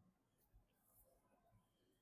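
Near silence, with a couple of faint, brief light ticks.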